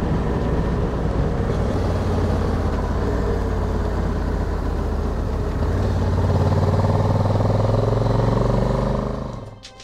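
Honda Africa Twin's parallel-twin engine running at road speed, mixed with steady wind rush. The engine note rises a little past the middle and holds, and the sound fades out near the end.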